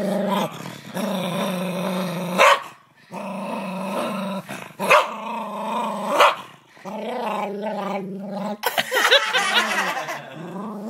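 Small dog growling in long, steady growls, broken by three short sharp barks about two and a half, five and six seconds in, with a rougher, louder stretch of growling near the end.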